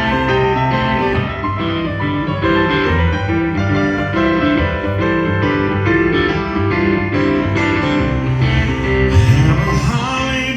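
Instrumental passage of a Christmas song, led by piano chords, without singing; a low sliding note rises near the end.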